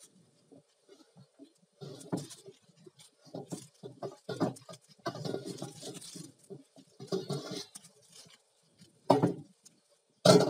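A wad of paper towel rubbed around the inside of a hot carbon steel wok to spread oil over it, in irregular scrubbing strokes. The two sharpest strokes come near the end.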